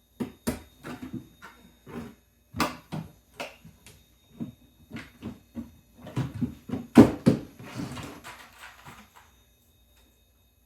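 Irregular clacks and knocks of RC crawler crag sections and braces being handled and clipped together, the loudest knock about seven seconds in, followed by a short scraping sound.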